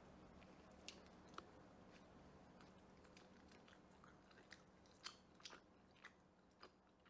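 Near silence: faint room tone with a low steady hum and a scattered handful of soft, sharp clicks, most of them in the second half.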